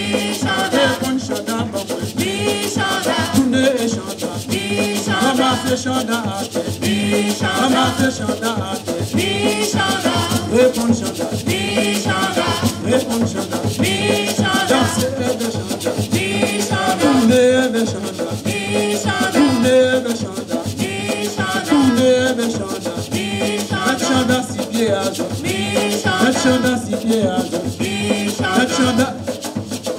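Live gwoka music: ka hand drums keeping a steady rhythm with a shaker, and voices singing a repeating chant.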